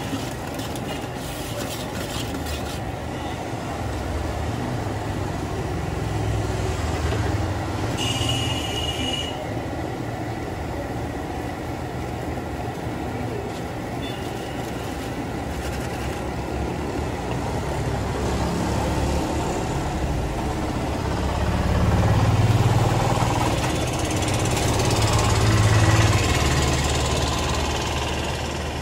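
Road traffic running steadily past, with louder rumbles as vehicles pass close about two-thirds of the way through and again near the end. A brief high-pitched sound cuts in about eight seconds in.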